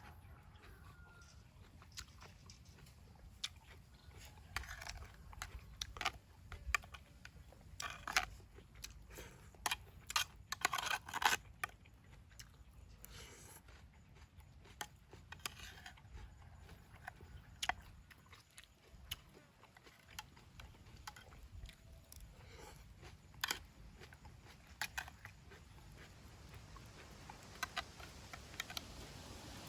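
A person eating: irregular crunches and chewing, with scattered small clicks.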